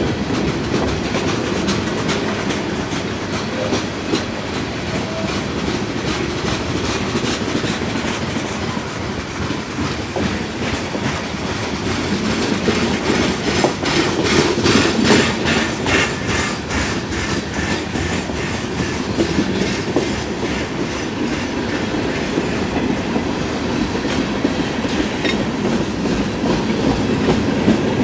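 Freight cars of a long manifest train rolling past on the rails: a steady rumble with wheels clicking over the rail joints, the clicking loudest and densest about halfway through.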